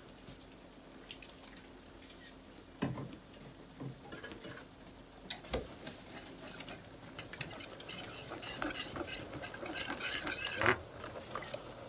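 A wire whisk stirring chunky chicken gravy in a metal skillet, clicking and scraping against the pan, busiest in the last few seconds. A single knock comes about three seconds in.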